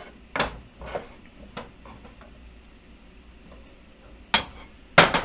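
Chef's knife chopping onion on a bamboo cutting board: three light knocks of the blade on the board about half a second apart in the first two seconds, then two louder knocks near the end.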